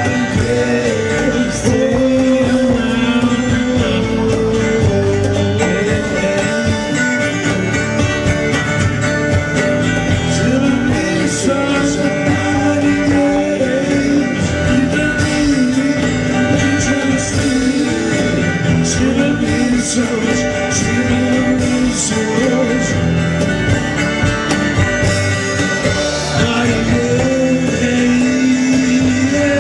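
Live rock-and-roll band playing: guitars, upright bass and drums in a steady groove, with a melodic line bending over the top.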